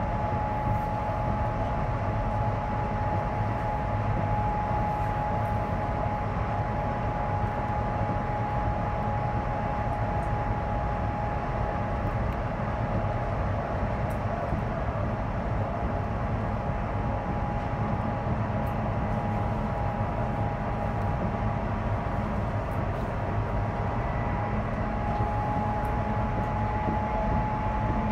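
Inside the carriage of a Chinese high-speed train running at a steady speed: an even low rumble of wheels and air, with a steady high whine over it.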